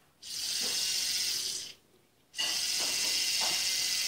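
Battery-powered toy dentist drill of a Play-Doh Doctor Drill 'n Fill set running in two high-pitched buzzing runs: one of about a second and a half, then a short pause, then a second run starting about two and a half seconds in.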